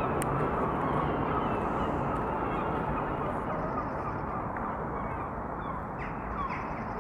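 Steady low outdoor background rumble, with a few faint short calls of other birds in the distance.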